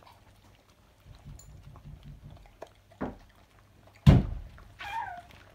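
Dog eating egg from a plastic bowl on the floor, with soft repeated chewing sounds, a knock about three seconds in and a loud thump about four seconds in, followed by a short falling tone.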